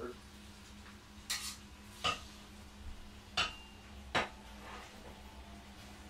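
African grey parrot making four sharp clicks and pops, about a second apart, one of them a short hissing burst.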